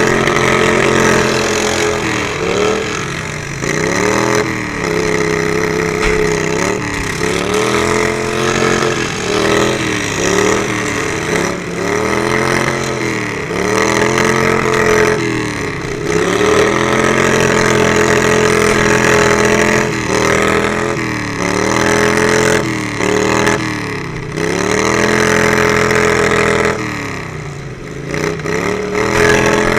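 Riding lawn mower engine under hard throttle, its revs dropping and climbing back again and again every second or two, with a steadier high-rev stretch in the middle and a deeper drop near the end.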